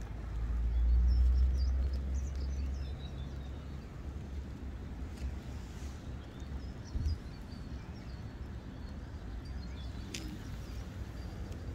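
Wind buffeting the microphone as a low rumble, strongest in the first few seconds, with faint bird chirps over it.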